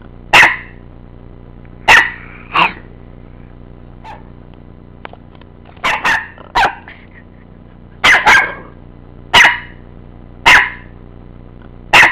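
A dog barking about ten times at uneven intervals, some single barks and some quick pairs, loud over a steady low hum.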